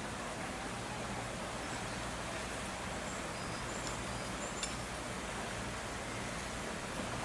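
Steady outdoor wind noise with rustling. A few faint, short high chirps come a little past the middle.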